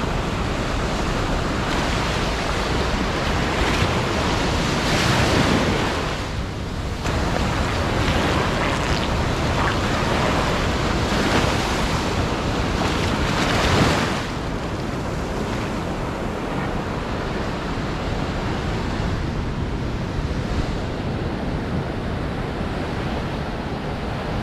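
Small waves washing up and drawing back over a sandy beach. The surf swells louder twice in the first half, then settles into a steadier, softer wash.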